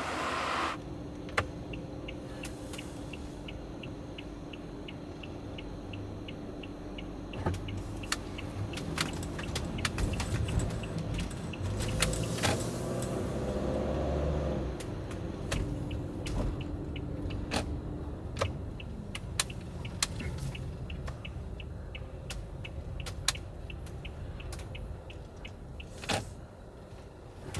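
Toyota HiAce camper van heard from inside the cab as it drives slowly, with a steady low engine and road rumble that swells around the middle. An evenly spaced ticking, the turn-signal relay, runs for several seconds near the start and again in the last third, with scattered clicks and knocks.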